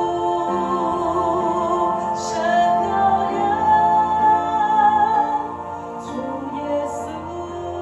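Slow, soft worship music: a woman singing long, sustained notes over a held keyboard accompaniment.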